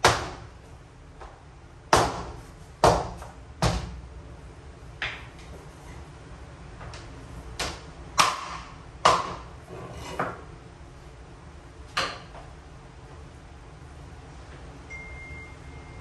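Mallet knocking laminate floor planks together to seat their joints: about ten sharp knocks at uneven intervals, each with a short ring, stopping about twelve seconds in.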